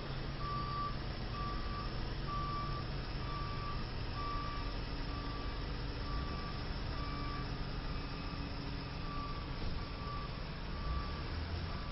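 Truck backup alarm beeping steadily, a little more than once a second, over the low running of a heavy truck engine, as a tow truck maneuvers.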